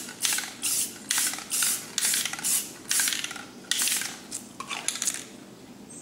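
Aerosol spray paint can giving a rapid series of short hissing bursts, about two a second, as light shading strokes. The bursts thin out and stop about five seconds in.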